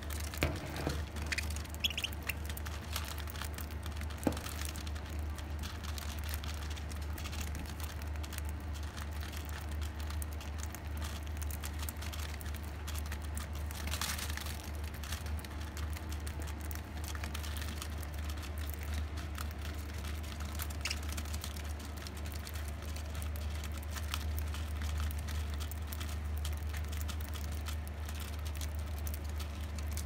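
Budgerigars pecking and husking seed on newspaper: many small beak clicks and taps on seed and paper, with a few sharper taps in the first few seconds, over a steady low hum.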